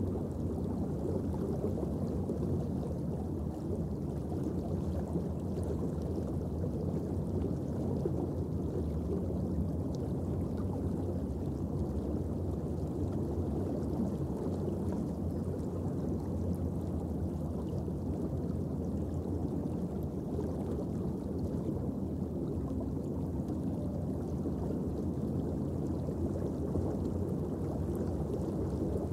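Steady low underwater ambient noise from the sea around a reef, picked up through an underwater camera housing, with a few faint ticks.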